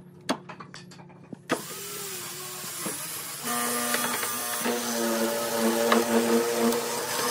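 Hollow-chisel mortising machine: a few light clicks as the vise is set, then the motor switches on about a second and a half in and runs steadily, getting louder about two seconds later as the bit bores into the pine workpiece.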